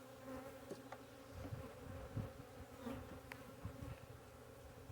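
Honey bees buzzing steadily around an open hive, a faint even hum, with a few soft knocks.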